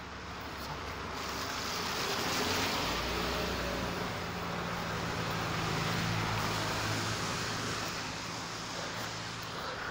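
Cars driving past close by on a damp road: engine hum and tyre noise swell up, peak in the middle and fade away again.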